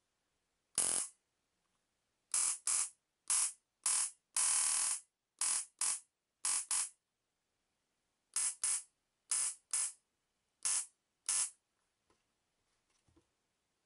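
Homemade 30 kV high-voltage generator sparking across two wire electrodes set in a plastic bottle funnel, fired in about sixteen short bursts, mostly in pairs, with one held for about half a second.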